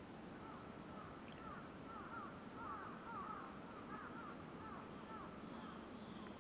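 Birds calling outdoors: a run of short, quick notes, several overlapping, that starts about half a second in and dies away after about five seconds.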